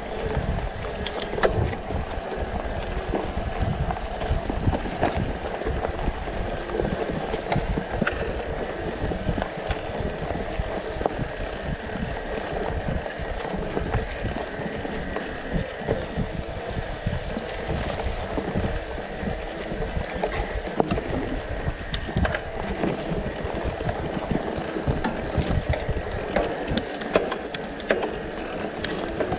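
Specialized Turbo Levo electric mountain bike ridden down a forest singletrack: tyres rolling over dirt and dry leaves and the bike rattling over bumps, with wind buffeting the microphone.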